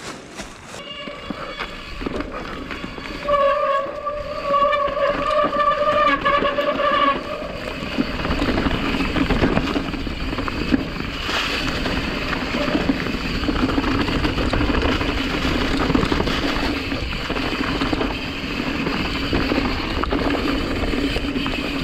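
Mountain bike running down a dirt trail. For the first seven seconds there is a steady, even-pitched buzz, typical of the rear hub freewheeling while the rider coasts. After that come tyre noise on dirt, rattling and knocks from the bike.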